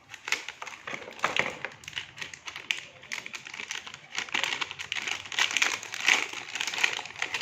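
Plastic packaging crinkling and crackling with many small irregular clicks as it is cut and pulled open.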